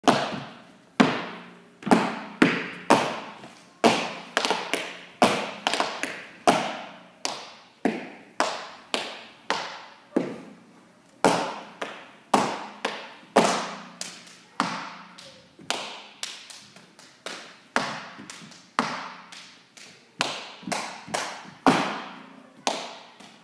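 Dance footwork: sharp stomps and taps on a hard studio floor in a slow, uneven rhythm, about two hits a second and some in quick pairs, each ringing briefly in the room.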